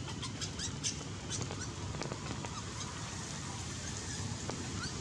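Baby macaque giving short high squeaks and cries, a cluster of them in the first second and a half and a short rising squeak near the end, over steady background noise.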